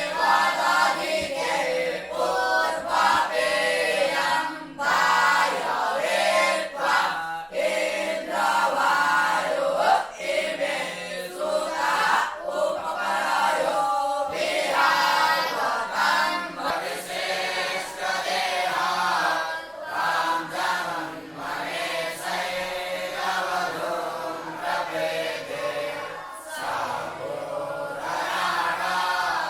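A group of voices chanting together in unison, a choir-like recitation of Hindu mantras, going on steadily without pause.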